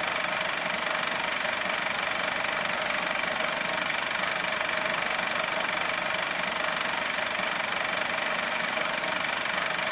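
Steady electronic drone under an animated logo intro: an even hiss with a steady hum and a thin high whine, unchanging in level.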